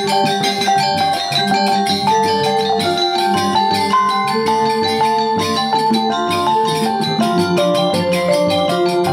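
Background music: a melody of short metallic, mallet-struck notes over a fast, steady percussive beat.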